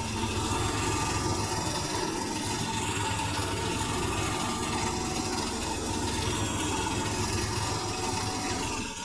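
Electrolux W555H professional washing machine running: a steady low rumble and vibration with a faint, steady high motor whine.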